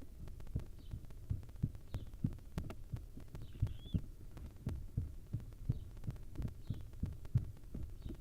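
Soft low thumping, about two or three times a second, under faint hissing calls about once a second, the begging hiss of barn owl nestlings.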